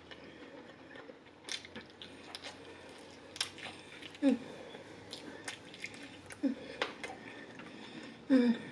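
Close-miked biting and chewing of crispy fried chicken wings, with sharp crunching clicks and wet mouth sounds throughout. There are three short hums, about four, six and eight seconds in.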